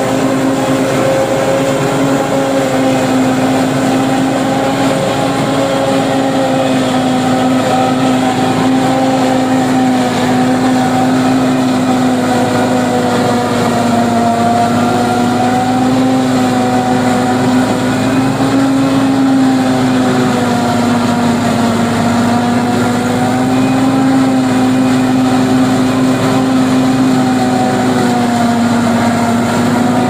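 Tractor-driven single-row forage harvester running steadily while it chops standing maize and blows the chopped silage out through its spout. The sound is a loud, steady droning hum whose pitch wavers slightly up and down.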